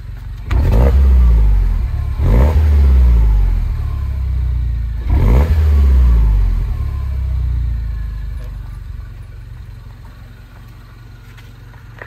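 Exhaust of a Mini Cooper S R56's turbocharged 1.6-litre N18 four-cylinder, revved three times from idle, each rev rising quickly and falling back. The last one sinks slowly to a steady idle. The engine has a slight misfire that shows under revving, which the mechanic puts down to a failed ignition coil pack.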